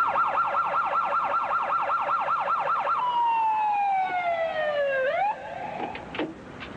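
Police patrol car's electronic siren in a fast yelp, about five sweeps a second, then switching to a long wail that falls in pitch for about two seconds. It flicks briefly upward and cuts off about five seconds in, followed by a few faint knocks.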